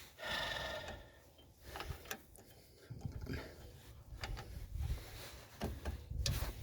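Scattered light metallic clicks and taps of rear drum brake hardware (shoes, return springs and self-adjuster parts) being handled and fitted by hand.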